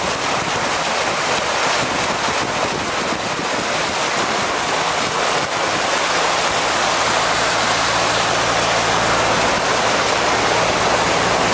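Vehicle driving through floodwater on a flooded road: a steady rushing and splashing of water thrown up by the wheels and front of the vehicle. The engine's low hum shows more clearly beneath it in the second half.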